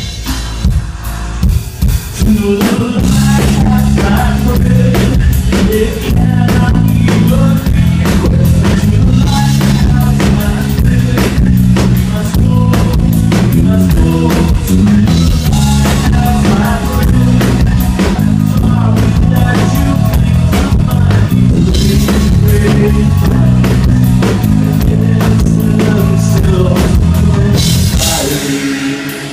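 Live band playing an instrumental passage with a drum kit and no singing. The full band with its heavy low end comes in about two seconds in and drops away near the end.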